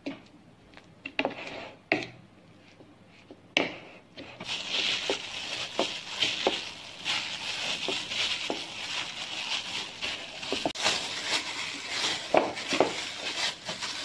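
Hands mixing and kneading crumbly bread dough in a bowl. There are a few scattered taps at first, then continuous rustling and scraping from about four seconds in.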